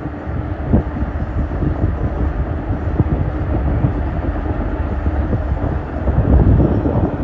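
Steady low rumble of a passenger ferry under way, with a few short knocks, the first about a second in and another about three seconds in.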